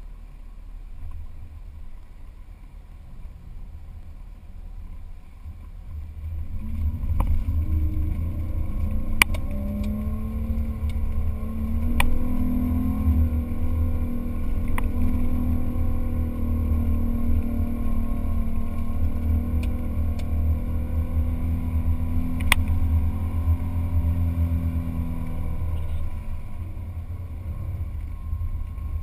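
An off-road 4x4's engine working hard under load while climbing and crossing soft sand dunes. It builds up about six seconds in, holds a strained pitch, then eases near the end. A few sharp knocks come through along the way.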